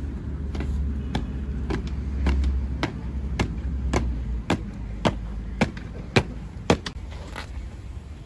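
Honour guards' boots striking the pavement in an even march step, about two sharp steps a second, about a dozen in all, stopping near the end. A low rumble runs underneath during the first half.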